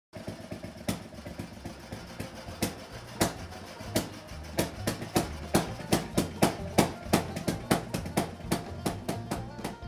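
Background music under a title card: sharp percussive hits, coming faster as it goes on, over a low bass line that moves in steps.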